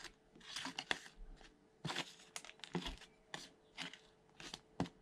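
Small metal hand trowel scraping and crunching through potting soil in a plastic seed cell tray, in short irregular strokes as soil is moved over seeds to cover them.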